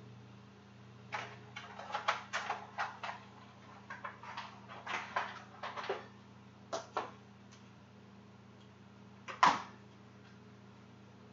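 Kitchen clatter while cooking: a run of short knocks and clinks as utensils, dishes and cupboards are handled, with one louder knock near the end, over a steady low hum.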